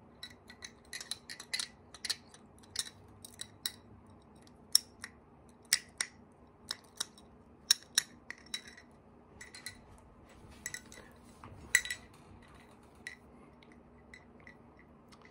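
Irregular sharp clicks and light clinks of small hard objects, dozens of them at uneven intervals, some much louder than others.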